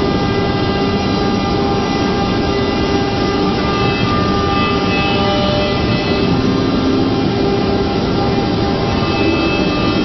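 CNC router running steadily: an even loud machine noise with several steady whining tones from the spindles, a few of them shifting slightly in pitch partway through.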